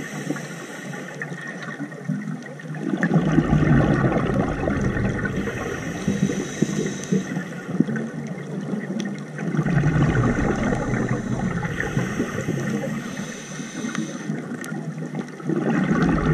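A scuba diver's regulator breathing underwater: three long bursts of exhaled bubbles gurgling, starting about three seconds in, near the middle, and near the end, with quieter spells of inhaling between them.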